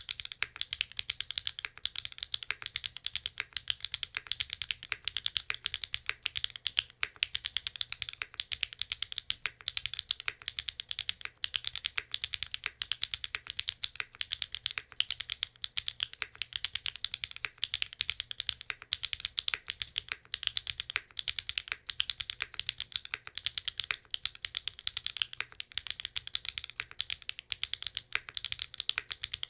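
Continuous fast typing on a QK75N mechanical keyboard with SWK Catmint boxed linear switches (flat pole), built on a flex-cut PCB and flex-cut plate with only case foam. It gives a dense run of crisp key clacks, many strokes a second.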